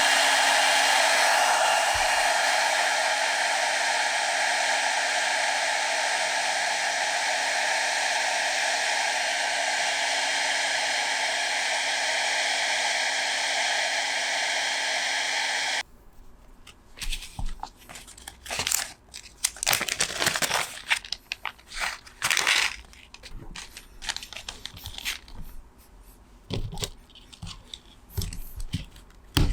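An electric blower, like a hair dryer or heat gun, running steadily, which cuts off suddenly about 16 seconds in. After that come scattered crinkling and scraping handling noises.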